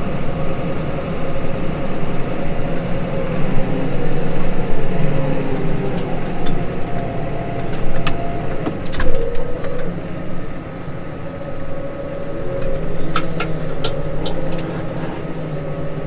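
Case Maxxum 150 tractor's six-cylinder diesel running under load, heard from inside the cab, its pitch dipping and rising as the revs change. A few sharp knocks and rattles come through as the tractor jolts over a rutted headland.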